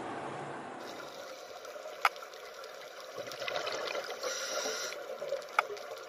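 Soft trickling, gurgling water with two sharp clicks, one about two seconds in and one near the end.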